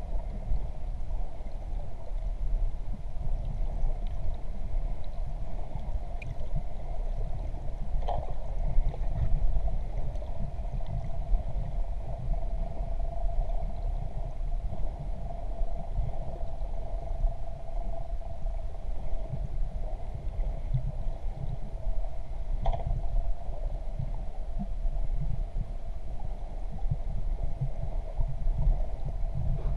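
Muffled underwater rumble of water moving around a GoPro's waterproof housing, with a steady droning hum underneath and a couple of faint clicks.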